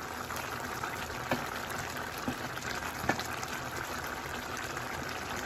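Shrimp and butternut squash curry simmering uncovered in a frying pan: a steady bubbling hiss with a few scattered small pops.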